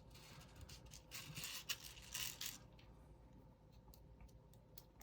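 Faint scratching and rustling of small plastic parts and screws being handled, busiest over the first two and a half seconds, then a few light clicks.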